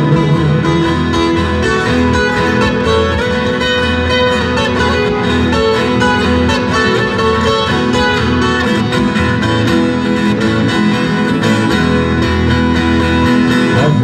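Viola caipira and acoustic guitar playing together in an instrumental break of a sertanejo song, with no singing.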